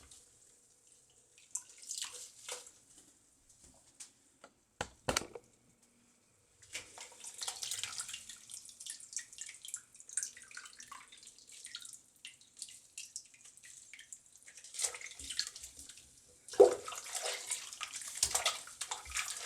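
A few knocks in the first seconds, then, from about seven seconds in, water running and splashing unevenly in a sink or tub while a kitten is bathed.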